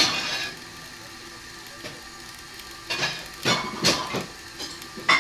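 Kitchen items clattering and knocking as things are moved about in a wall cabinet: a burst at the start, several knocks and scrapes about three to four seconds in, and a sharp click near the end. Underneath, a soft steady hiss of sausages sizzling in a frying pan.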